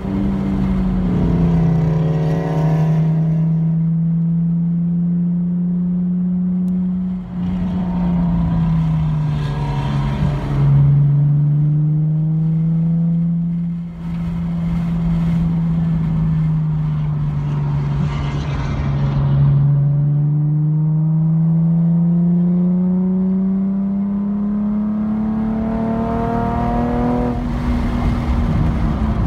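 A car's engine heard from inside the cabin at track speed, running steadily and rising and falling in pitch several times as the car accelerates down the straights and slows for corners.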